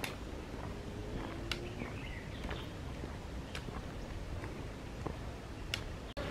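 Footsteps on a concrete path with four sharp clicks of a trekking pole tip striking the concrete, and a few faint bird chirps in the woods.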